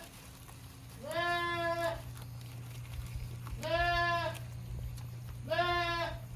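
Goat bleating three times, each a steady, drawn-out call of just under a second, over a steady low hum.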